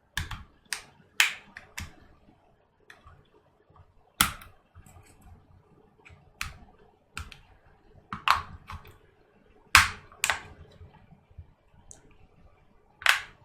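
Plastic snap-fit clips of a DJI Spark drone's top shell clicking as the cover is pried off, a scatter of sharp, irregular clicks with short pauses between; the clips are stiff and the cover comes away grudgingly.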